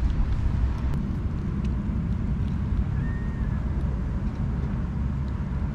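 Wind buffeting the microphone in a steady low rumble, with a faint short cat meow about three seconds in.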